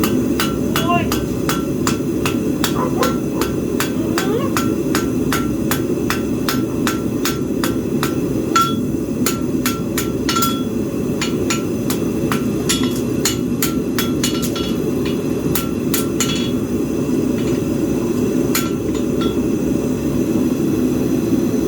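Blacksmith's hammer striking hot iron on an anvil, ringing blows about two to three a second, then slower, spaced groups of strikes with pauses in the second half, over a steady low rumble.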